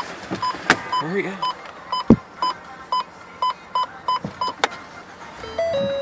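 2013 Ford Fusion's alarm warning chime: a short high beep repeating two to three times a second, the car signalling that it has been entered while locked. The beeps stop about four and a half seconds in, with a few sharp clicks among them. Near the end a short stepped tone starts as the car is switched on to cancel the alarm.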